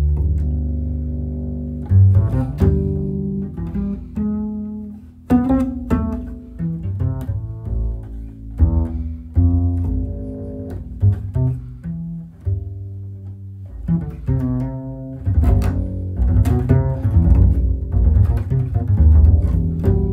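Pizzicato solo on a handmade travel double bass with a removable neck: a slow melody of plucked notes, some low notes left ringing for a second or two.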